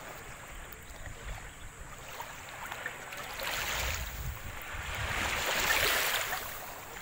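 Small waves lapping and sloshing in shallow seawater, swelling twice in the second half, with some wind on the microphone.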